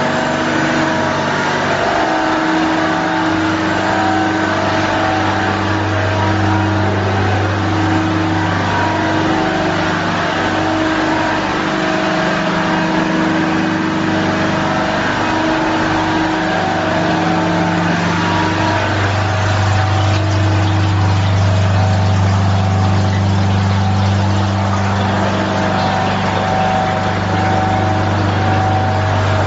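Industrial tube ice machine running, its refrigeration compressors and pumps giving a loud, steady low hum with several higher tones that come and go every few seconds.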